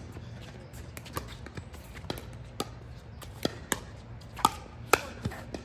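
Pickleball rally: paddles striking a hard plastic ball, a run of sharp pocks at uneven intervals, some faint and some loud, with the two loudest about half a second apart near the end.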